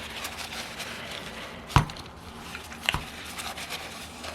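Two sharp knocks about a second apart, over faint rustling of gloved hands: small metal engine parts being handled and set down on a workbench during disassembly.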